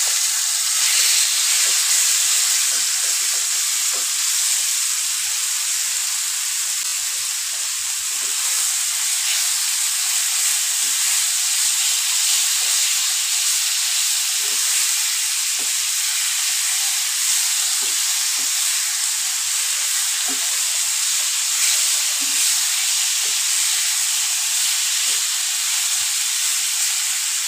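Marinated chicken pieces sizzling in hot oil in a frying pan: a loud, steady hiss, with the occasional scrape and tap of a wooden spatula stirring the pieces.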